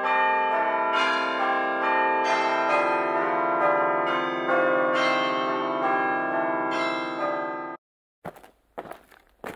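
Background music of bell chimes: a peal of ringing, overlapping notes, a new one struck about every half second, which stops abruptly about eight seconds in. A few sharp taps follow near the end.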